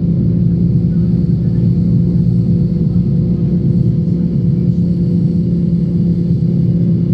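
Steady rumble of a moving train heard from inside the carriage, with a constant low hum running through it.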